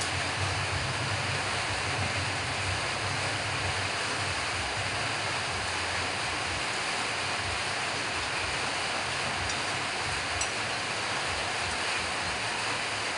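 Steady rushing noise, like air blowing or heavy rain, with an unsteady low rumble that is strongest in the first few seconds and then eases.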